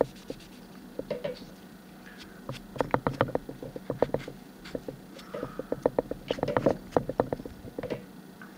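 Excess wood glue being wiped off a cable-tied wooden couch leg: runs of quick scratchy rubbing clicks, about three seconds in and again from about five seconds in.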